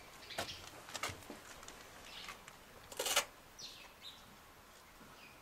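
Small birds chirping, each chirp a quick falling note, a few times. Scattered scuffs and knocks among them, the loudest a brief rustling scrape about three seconds in.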